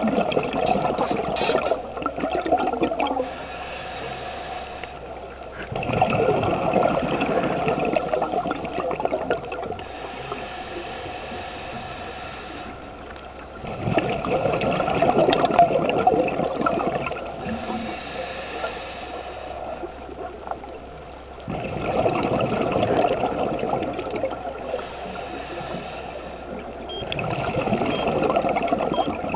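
A scuba diver breathing underwater through a regulator: five bursts of exhaled bubbles, each rushing and bubbling for about three seconds, one every six to eight seconds, with quieter stretches between them.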